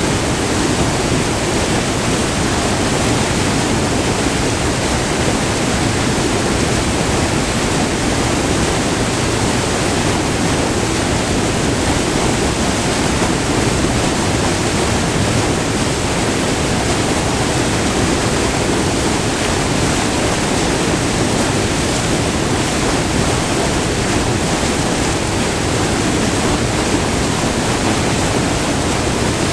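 Close-up rush of a short, multi-tiered river waterfall: white water pouring and churning in a steady, loud, unbroken roar.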